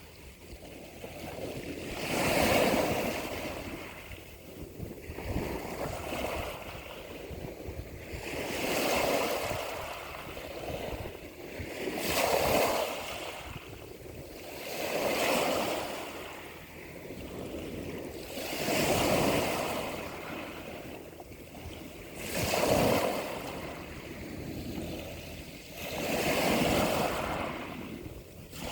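Ocean waves breaking and washing in, the surf swelling and falling away about every three to four seconds.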